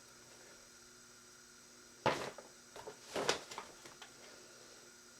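Quiet room, then a few short rustling and knocking handling noises starting about two seconds in, the first the loudest, with another cluster about a second later.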